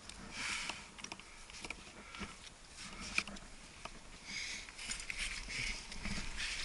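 A climber's heavy breathing in repeated drawn breaths, mixed with scrapes and sharp small clicks as leather-gloved hands jam and shift in a granite crack.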